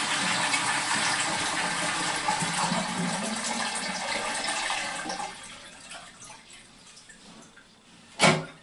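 Toilet cistern flushing with its water supply shut off at the isolation valve: water rushes out into the pan for about five seconds, then dies away as the cistern drains empty without refilling. A single sharp knock near the end.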